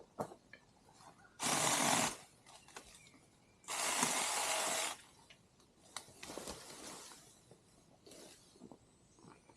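Saker 6-inch battery-powered mini chainsaw run in two short bursts while trimming brush, the first about a second and a half in and the second, about a second long, near four seconds in. Quieter clicks and rustles come in between.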